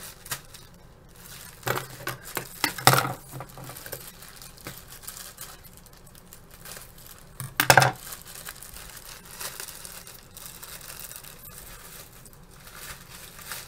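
Hands opening a parcel: plastic packaging crinkling and tearing, with a few sharp knocks and clinks about two to three seconds in and one louder knock about halfway through.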